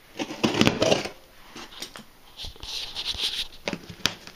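A utility knife cutting open a cardboard package: a few clicks, then scratchy scraping and rustling as the blade works through the tape and box.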